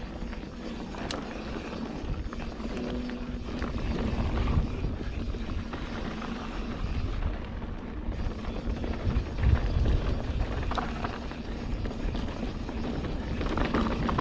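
Mountain bike rolling fast down a dirt trail, with a steady low rumble of wind buffeting the microphone and tyre noise. Scattered clicks and rattles come from the bike over the rough ground.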